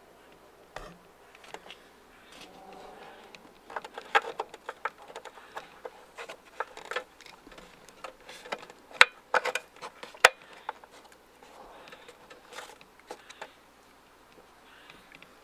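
Irregular light clicks and small knocks of hands and hardware working on a plastic headlight housing, busiest in the middle, with two sharp clicks about a second apart.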